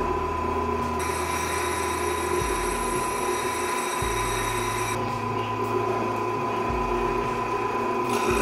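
Drill press running, its bit boring through a steel plate, with a steady whine; the sound changes abruptly a few times.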